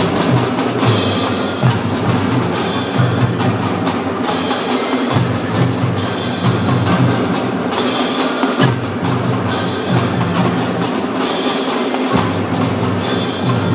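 Children's drum band playing a tune on marimbas and xylophones over bass drums, with cymbal crashes.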